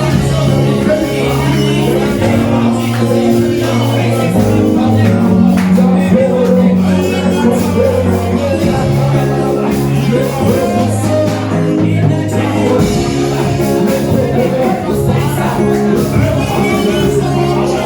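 Church praise music: a band with bass and drums playing a steady beat while voices sing.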